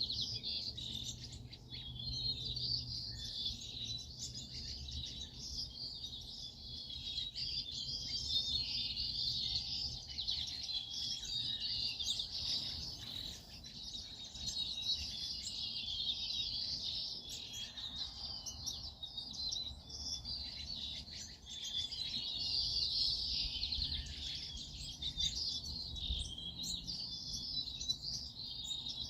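A flock of small songbirds chirping and twittering without pause, a dense overlapping high-pitched chatter, over a steady low rumble.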